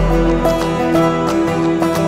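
Background music: plucked acoustic guitar over a sustained bass line.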